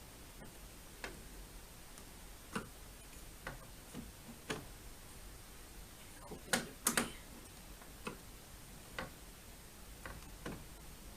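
Irregular clicks and small knocks of a Phillips screwdriver turning screws into a plastic TV base stand, about a dozen in all, the loudest a quick pair just before the middle.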